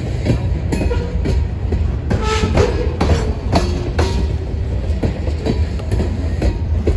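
Freight cars of a CN grain train rolling past, steel wheels clacking irregularly over rail joints above a steady low rumble, with a few brief squealing tones.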